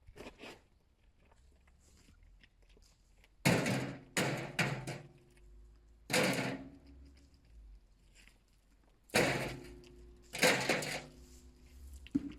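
A series of heavy thuds, some in quick pairs and triples, each with a short low ringing tail.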